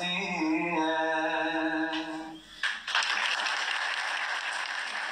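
A man singing unaccompanied holds the last long note of a Bosnian devotional song, which ends about two and a half seconds in; right after, the audience breaks into applause.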